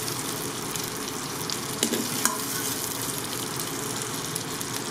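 Andouille sausage slices sizzling in oil in an Instant Pot's stainless steel inner pot on sauté, while a metal slotted spoon scrapes and scoops them out. A couple of sharp clinks of the spoon against the pot come about two seconds in.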